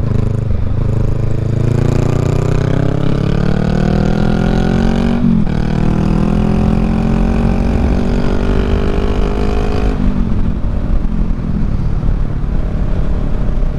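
Honda Rebel 500's parallel-twin engine under hard acceleration: the engine note climbs for about five seconds, drops briefly at a gear change, climbs again, then falls away about ten seconds in as the throttle eases. Wind rushes over the microphone throughout.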